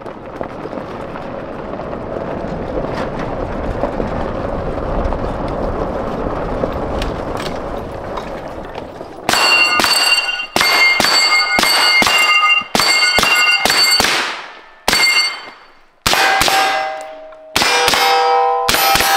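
A steady rushing noise while the shooter runs. From about nine seconds in, an AR-15 rifle fires in quick strings of shots, each hit on the steel targets ringing out with a high metallic ring.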